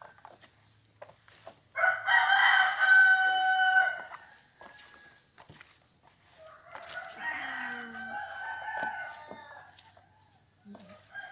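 A rooster crowing twice: a loud crow lasting about two seconds, starting about two seconds in, and a fainter, longer one starting about six and a half seconds in. Underneath are faint rustles and clicks of a hand mixing catfish, leaves and spices in a plastic basin.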